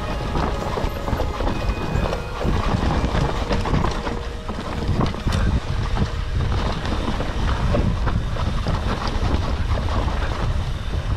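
Mountain bike ridden fast down a dry, loose dirt trail: tyres rolling and skidding on the dirt, the chain and frame rattling with scattered small knocks, over steady wind rumble on the action-camera microphone.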